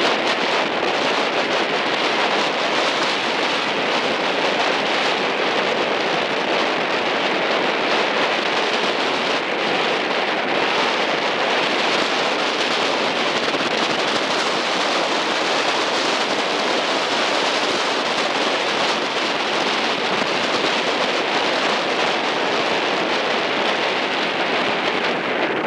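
Steady rushing wind noise on the microphone, with water rushing past, from a boat moving at speed alongside a racing eight.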